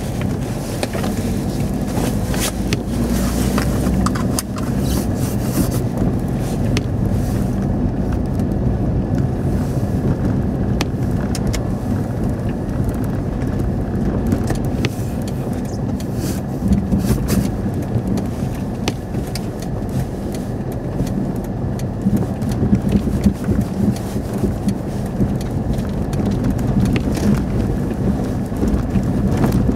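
Car cabin noise while driving over a snow-covered road: a steady low rumble of engine and tyres, with scattered clicks and knocks throughout.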